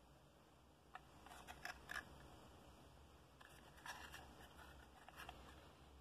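Faint handling noise: a small cardboard box rustling and scraping against the fingers as it is turned in the hand. It comes in two short spells of clicks and scrapes, one about a second in and one around the middle.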